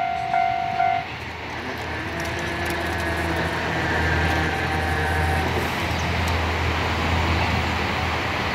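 Japanese level-crossing warning bell clanging about twice a second, which stops about a second in. Then a steady low vehicle rumble grows slowly louder.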